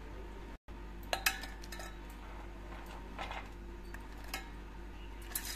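Scattered light clinks and taps against a stainless steel mixer-grinder jar as ingredients such as cashews are dropped into it, the sharpest about a second in and a cluster near the end, over a steady low hum.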